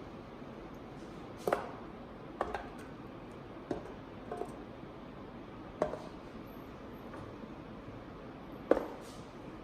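Kitchen clatter during cooking: about seven separate sharp knocks of utensils, dishes or cookware set down or handled at irregular intervals, the loudest near the end.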